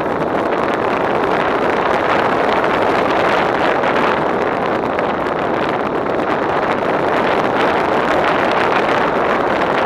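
Steady rush of wind over the microphone of a camera on an aircraft in flight: an even roar with no distinct engine tone.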